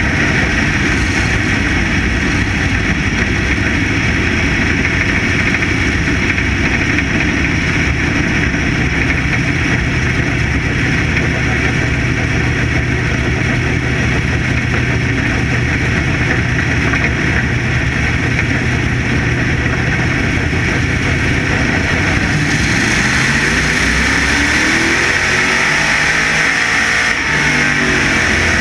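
Factory stock dirt-track race car's engine running hard at racing speed over a steady rush of noise. About two-thirds of the way through, the engine note drops off and then climbs steadily for a few seconds as the car accelerates.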